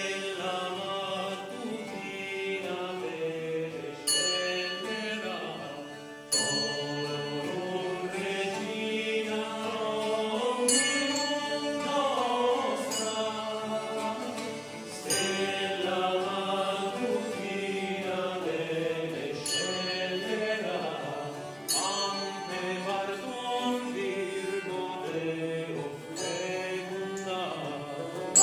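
Medieval early-music ensemble playing live: a male voice sings over plucked lutes and a bowed vielle, with a sharp percussive accent about every two seconds.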